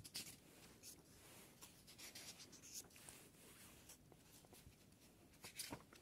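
Faint rustling of paper as a hand turns and brushes the pages of a thin printed workbook, with a slightly louder rustle near the end.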